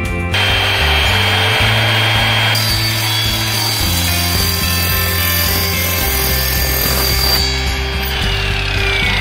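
Evolution Rage3 10-inch multi-material miter saw cutting through material, starting about a third of a second in, with a steady high blade whine over the cutting noise. Near the end the cut stops and the whine falls in pitch as the blade winds down. Background music plays underneath.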